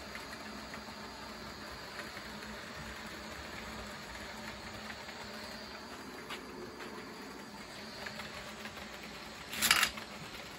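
HO-scale model trains running on the layout: a steady faint whir of small electric motors and wheels on the rails, with light scattered clicks. About nine and a half seconds in, a short loud burst of hiss stands out above it.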